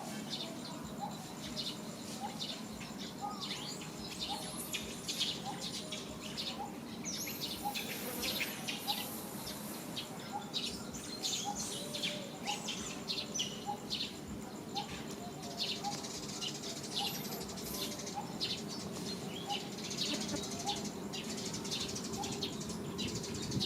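Small birds chirping busily over a steady background hum, with short high chirps coming every second or so.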